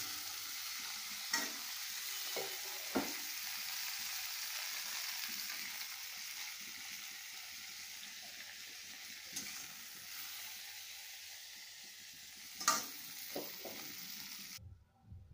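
Mustard oil sizzling in an iron kadai around freshly fried cauliflower florets, with a few sharp metal clinks and scrapes as the florets are lifted out with a spatula. The sizzle slowly dies down and cuts off suddenly near the end.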